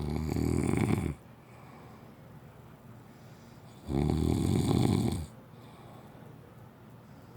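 A sleeping man snoring: two long, loud snores, one at the start and another about four seconds in, each lasting over a second, with quiet between them.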